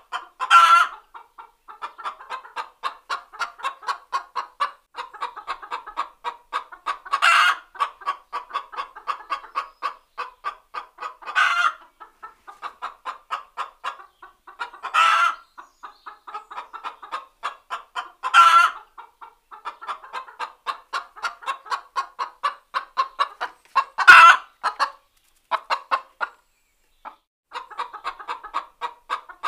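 A hen cackling: a fast run of short clucks broken every few seconds by a loud, drawn-out squawk, the egg song a hen gives when laying.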